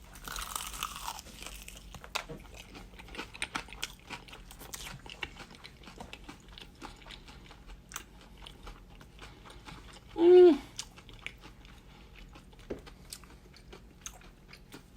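A person biting into and chewing crispy fried chicken, with many small crunches. About ten seconds in comes one short, loud voiced "mm" with a falling pitch.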